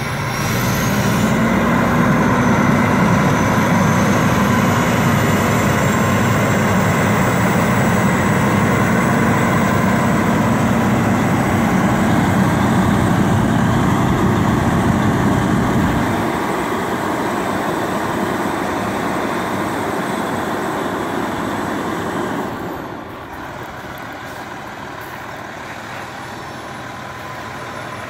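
Freightliner Columbia semi tractor's diesel engine running as the bobtail truck drives slowly on gravel. It is loudest at first, eases off about sixteen seconds in, and drops lower again around twenty-three seconds.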